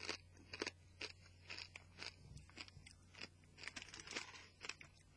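Pork crackling being chewed: a steady run of crisp crunches, about three or four a second.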